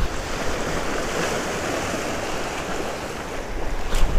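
Small sea waves washing and splashing over shoreline rocks, a steady rush, with wind buffeting the microphone near the end and one sharp click about four seconds in.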